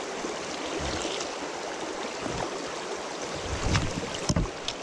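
Fast-flowing river water rushing steadily, with a few low thumps near the end.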